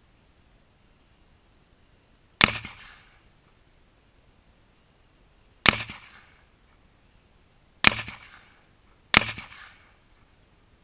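Four .223 rifle shots from a Bushmaster AR-15, heard from beside the target, each a sharp crack with a short echoing tail. The shots come unevenly, the last two about a second apart, and all miss the Tannerite because the scope is set for 600 yards.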